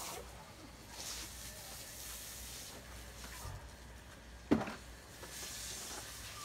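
Faint steady hiss of background noise, with a single sharp knock about four and a half seconds in.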